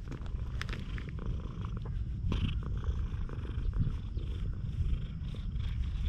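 Tabby cat purring steadily while being stroked, with a few soft rustles and clicks of the hand on its fur.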